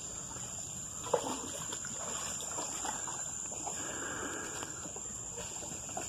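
Insects buzzing in one steady high-pitched note, with soft splashing and trickling of water around a wooden canoe and a short knock about a second in.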